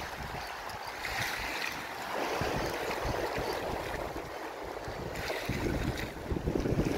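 Wind buffeting the microphone over small sea waves washing and lapping in the shallows. The gusts rumble loudest near the end.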